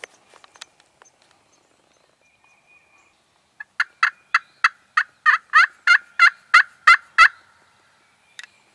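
Turkey yelping: a run of about a dozen yelps, about three a second, starting softly and quickly growing loud and close, then stopping.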